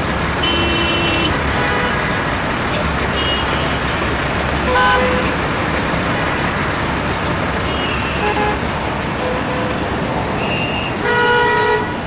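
Busy city street traffic: a steady wash of engine and tyre noise with car horns honking several times, the loudest near the end.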